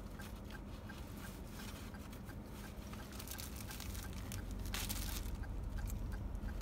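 Plastic food bags rustling and crinkling as they are handled, with two short louder crinkles about three and five seconds in. Under it runs a steady low hum inside the car, and a faint even ticking about three times a second.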